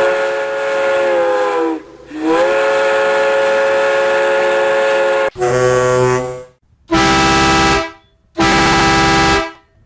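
A run of vehicle air horns, one after another. The first is a long, chord-like blast held about five seconds, its pitch sagging briefly about two seconds in. A shorter horn of a different tone follows, then two separate one-second buzzy blasts near the end.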